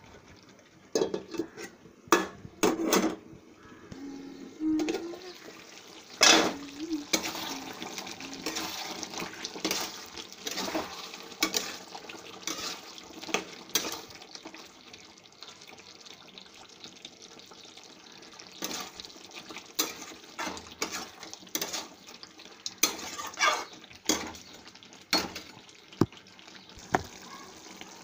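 Spatula stirring chicken in a metal pan, clinking and scraping against the pan in irregular knocks, over a steady sizzle of frying.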